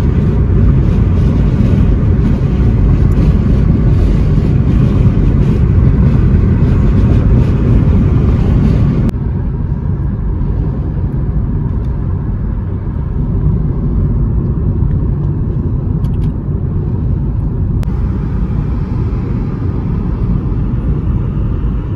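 Car driving, a steady low road and engine rumble; it drops abruptly in level about nine seconds in.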